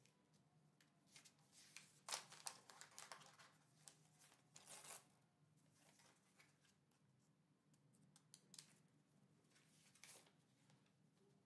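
Faint handling noise of a smartphone and its packaging: scattered short rustles and clicks, the loudest about two seconds in and again near the middle, over a low steady room hum.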